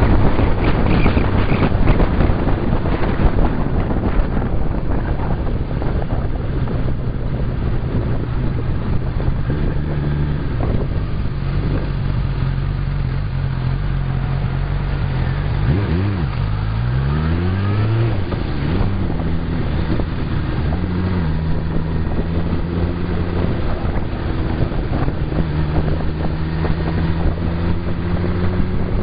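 Suzuki Bandit 1200's inline-four motorcycle engine running at road speed, with wind rushing over the microphone. About halfway through, the engine note drops and then climbs in several quick rising sweeps as the bike slows and accelerates up through the gears, and it rises again near the end.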